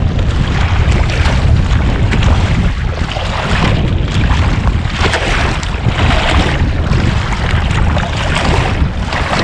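Double-bladed kayak paddle dipping and splashing through choppy sea with a stroke about once a second, over heavy wind rumble on the microphone.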